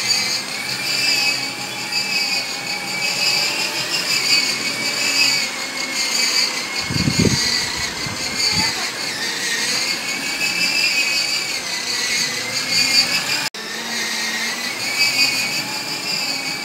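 Battery-powered ride-on toy motorcycle's electric motor and plastic gearbox whining steadily as it drives, the pitch wavering slightly with speed. A short low thudding comes in about seven to eight and a half seconds in.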